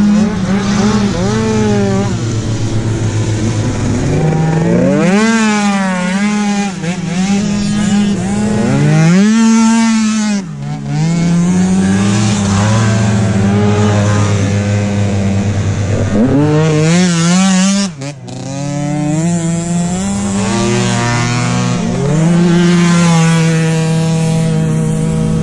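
Several tuned 50 cc two-stroke scooter engines racing, revving high. Their overlapping notes rise and fall in pitch as they accelerate and ease off.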